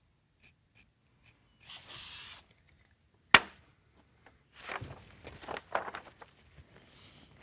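Scissors snipping and then sliding through cloth with a short hiss. A single sharp knock follows, the loudest sound. Then comes a flurry of rustling and scraping as a metal vent grille is handled on crinkly kraft paper.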